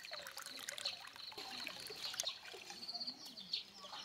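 Faint outdoor ambience: high chirping in short repeated trills, over a soft trickling hiss with scattered small clicks.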